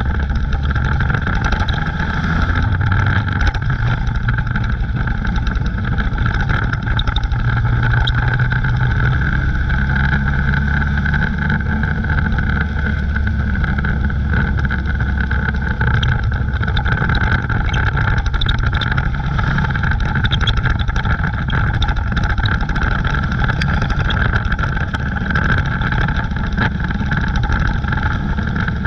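Dirt-track stock car's engine running hard under race load, heard from inside the car's cockpit, with small rises and falls in pitch and a steady high whine over it.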